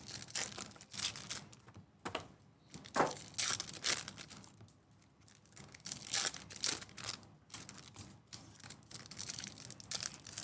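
Foil wrappers of 2024 Topps Series 2 baseball card packs being torn open and crinkled, in an irregular series of short rustling tears.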